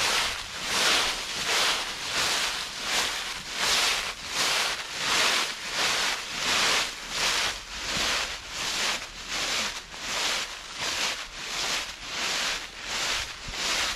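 Footsteps crunching and rustling through a thick layer of dry fallen leaves at a steady walking pace, about three steps every two seconds.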